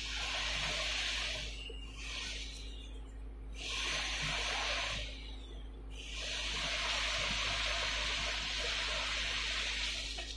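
Kimchi fried rice sizzling in a frying pan, a hiss that swells and drops away several times, over a faint steady low hum.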